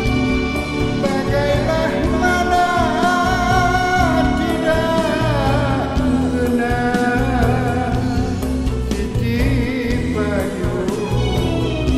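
Recorded Malay song: an ornamented, wavering vocal melody over band accompaniment with a steady bass and beat.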